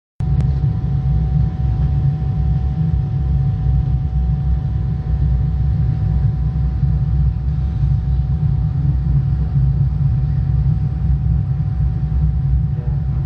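Jet airliner cabin noise in flight: a steady low rumble with a faint steady whine above it, heard from inside the cabin.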